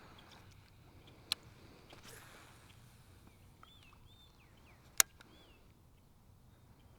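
Two sharp clicks, a light one about a second in and a much louder one about five seconds in, with a few faint bird chirps around the middle.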